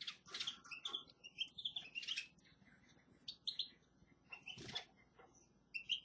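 Small caged finches chirping: short high calls scattered irregularly, mixed with a few scratchy rustles.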